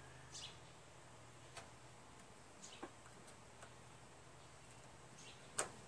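Faint scattered metal clicks of snap-ring pliers working a snap ring off a mower's transaxle shaft, with one sharper click about five and a half seconds in as the ring comes free.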